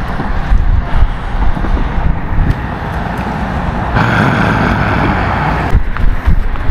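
Wind buffeting the microphone over a steady rush of traffic noise. The hiss turns brighter for a couple of seconds about four seconds in.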